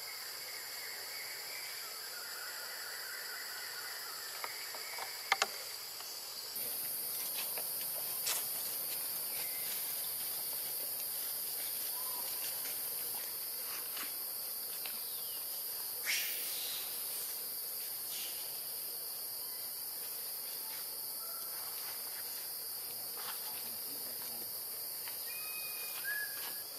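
Steady high-pitched buzzing of forest insects, stepping up in level about six seconds in. A few sharp clicks and faint short chirps are scattered through it.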